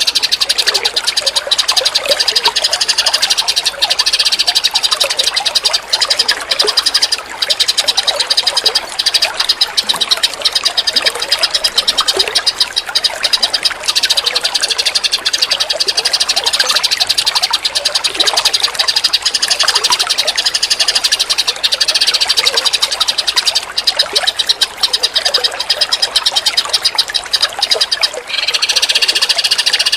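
Continuous fast, chattering birdsong and trilling from long-tailed shrike and white-rumped shama, played as a song-training recording, with scattered lower chirps.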